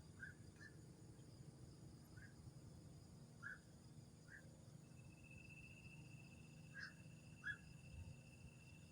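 Faint night insect chorus: a steady high trill that comes in about halfway through, over scattered short chirps and a low background hum.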